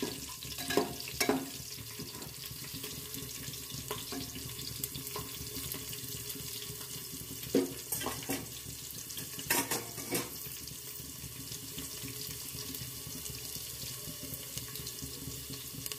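Garlic cloves and whole spices sizzling in hot oil in an aluminium pressure cooker: a steady hiss, with a metal ladle scraping the pot in the first second or so and a few sharp clicks around the middle.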